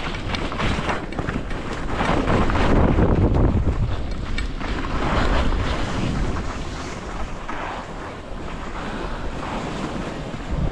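Wind buffeting the microphone while skis hiss and scrape over the snow, in swells every second or two as the skier turns; it eases off over the last few seconds.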